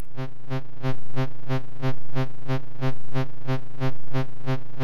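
Synthesized tone from a Max/MSP 2d.wave~ two-dimensional wavetable oscillator: one steady low note, buzzy and rich in overtones. Its timbre flickers in quick regular steps, several a second, and it swells in loudness about twice a second.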